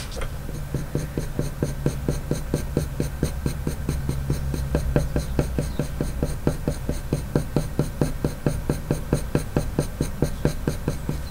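Coloured pencil scratching on paper in quick, short, light strokes, about five a second, as fur lines are hatched in.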